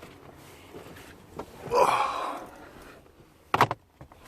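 A person's loud breath out about two seconds in, then a short sharp knock about a second later.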